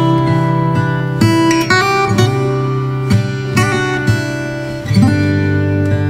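Relaxing background music on acoustic guitar: slow plucked notes and chords left to ring over steady low bass notes.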